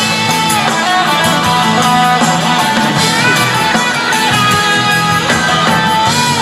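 Live rock band playing: electric guitars to the fore, with a lead line that bends in pitch, over drums.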